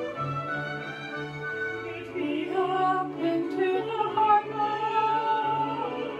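Operatic music: a singing voice holding long notes with vibrato over orchestral accompaniment, swelling louder about two seconds in.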